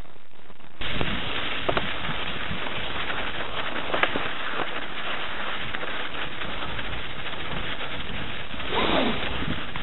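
Riding noise from a mountain bike on a snow-covered trail: a steady rush of wind on the camera microphone mixed with tyre and frame rattle, starting suddenly about a second in, with a few short knocks.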